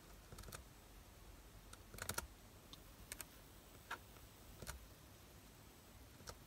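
Faint, irregular clicks of laptop keys being pressed, about a dozen, with a quick cluster about two seconds in.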